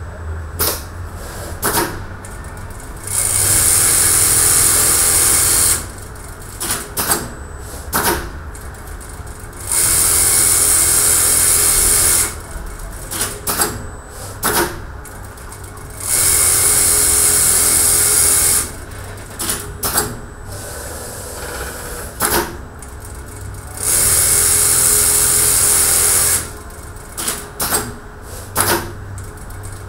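JOOKE CNC pattern sewing machine stitching pocket flaps through a clear template. It runs in four bursts of about two and a half seconds, roughly every six to seven seconds, with sharp clicks and knocks from the machine between the bursts.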